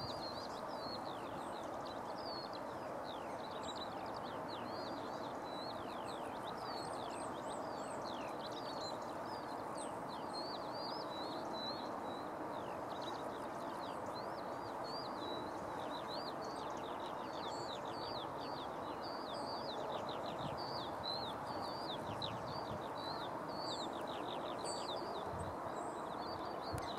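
Common kestrel chicks begging in the nest hollow at a feeding: rapid, high, thin chirping calls that keep on without a break, over a steady background hum.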